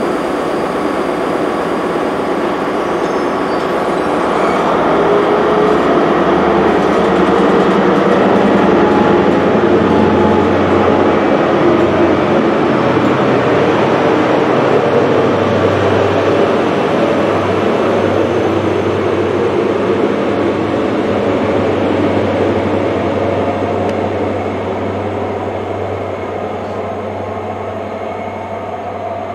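Passenger train running along the line past the platform: a continuous rumble of wheels on rail with a low steady hum. It grows louder over the first ten seconds or so, then slowly fades.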